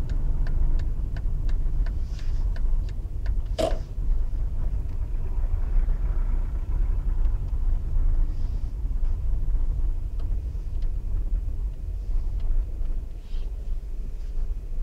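Bus diesel engine running at low speed, a steady low rumble heard from inside the bus as it moves slowly. A regular ticking, about two to three a second, runs through the first three seconds, and a single sharp knock sounds about three and a half seconds in.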